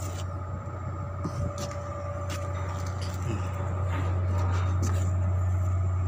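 Heavy diesel engine running steadily, a low hum, with a few faint clicks and knocks over it; it grows a little louder about four seconds in.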